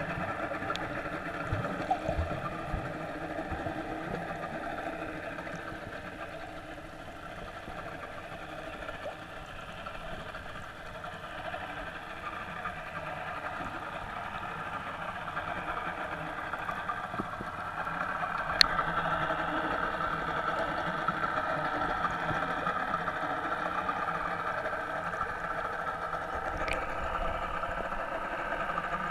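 Boat engine running steadily, heard underwater: a continuous hum made of several steady pitches, dipping a little in level and rising again. One sharp click comes about two-thirds of the way through.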